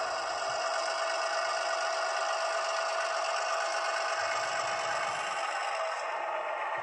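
Simulated diesel engine sound from the LokSound 5 decoder in an HO-scale Atlas MP15DC switcher, played through the model's small onboard speaker. The engine runs steadily as the locomotive creeps along the track, and it sounds thin, with little bass.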